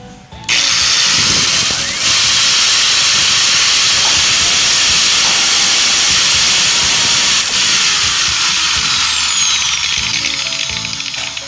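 Mitsubishi-branded electric angle grinder switched on about half a second in, its whine rising quickly as it spins up, then running steadily with no load. Later its pitch falls slowly as it winds down.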